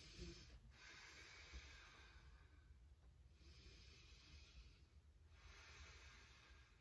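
A woman breathing faintly in slow, deep breaths, about four of them, each a soft hiss lasting a second or two. She is catching her breath after hopping exercises.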